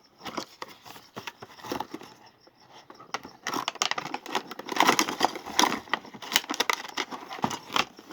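A shaving machine's box and packaging being opened by hand: irregular rustling, crinkling and tearing, busier and louder from about halfway in.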